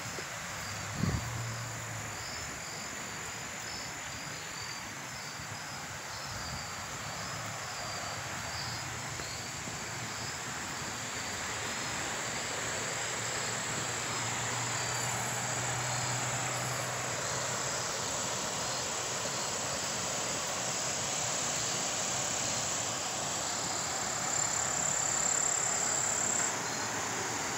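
Insects chirping in quick, even pulses over a high steady trill, above a steady rushing hiss. There is a single short knock about a second in.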